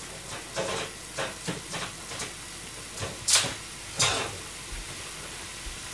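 A string of short, irregular crackles and rustles, the two loudest about three and four seconds in, over a pot of soup simmering on a gas stove.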